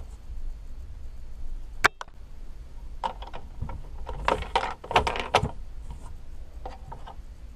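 Plastic clicks and clacks from a homemade LEGO brick candy dispenser worked by hand as it dispenses a wrapped Starburst: one sharp click about two seconds in, then a run of clacks and knocks from about three to five and a half seconds in, and a few lighter clicks near the end.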